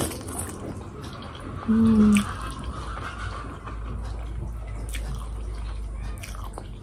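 Steady low background rumble that swells through the middle, under faint scattered clicks, with one short loud pitched sound about two seconds in.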